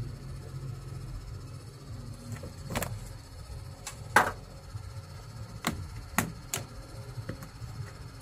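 Handling of a woven plastic-strip handbag: about six sharp clicks and knocks from the stiff plastic weave and its metal charm clasp, the loudest about four seconds in, over a low hum.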